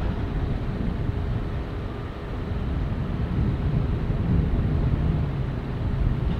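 Steady low rumble of a jet aircraft's engines, with a few faint steady tones above it, mixed with wind on the microphone.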